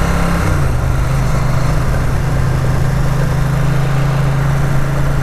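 Ducati 900 SS's air-cooled V-twin running while riding, its pitch dropping about half a second in as the revs fall, then holding steady.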